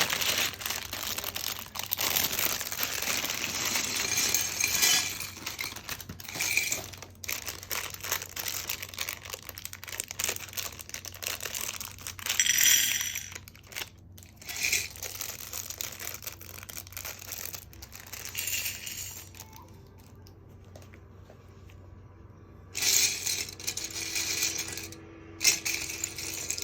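Loose LEGO pieces clattering and clinking as they are handled and sifted, in bursts with short pauses and a quieter spell near the end.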